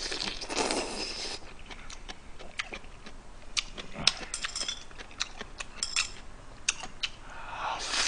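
A man slurps ramen noodles with a noisy hiss lasting about a second, then chews, with scattered sharp clicks. He slurps again near the end.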